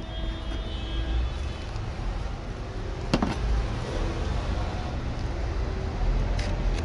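Low, steady background rumble with a single sharp click about three seconds in.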